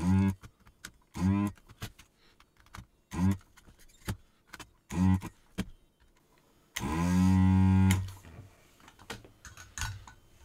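Pro'sKit SS-331H desoldering gun's vacuum pump buzzing in four short pulses, then one held for about a second, sucking molten solder out of a screw terminal's through-hole pins. Faint clicks come between the pulses.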